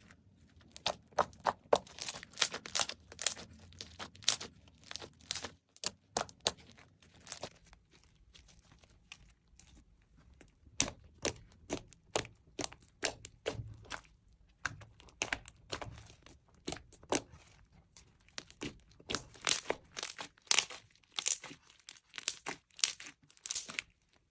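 Slime being squeezed and worked by hand, giving clusters of sharp crackles and pops, with a sparser stretch about a third of the way in.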